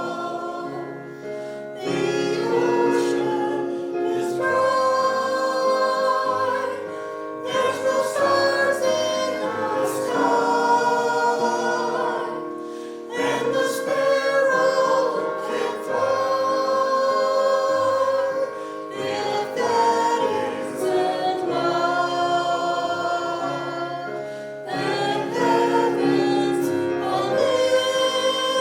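Gospel song: singing voices with instrumental accompaniment, in long held phrases.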